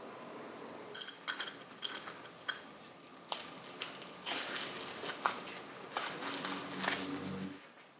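A few light metallic clicks and taps, then scratchy rubbing in short strokes as a twisted cleaning swab is worked in and out of the bore of a sandblasted aluminium Harley Sportster brake master cylinder body.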